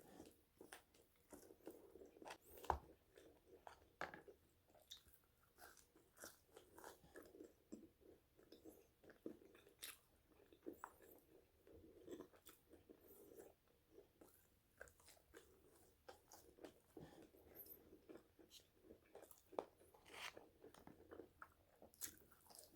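Someone biting and chewing crispy french fries close to the microphone: faint, irregular crunches and mouth sounds, with one louder crunch about three seconds in.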